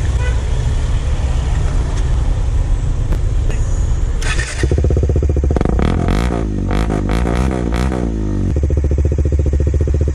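Kawasaki Dominar 400's single-cylinder engine running through an aftermarket slip-on muffler: idling, blipped up and down several times in the middle, then settling back to idle.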